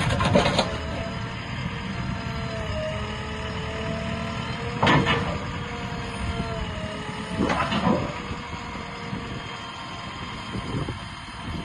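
JCB 3DX backhoe loader running, its engine a steady hum under a wavering whine. Loud knocks come at the start, about five seconds in and again near eight seconds.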